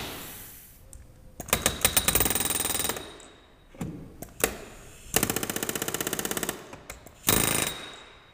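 Pneumatic rivet gun hammering rivets into the engine baffle's retaining strip: three bursts of rapid blows, the last one short, with a couple of single knocks between.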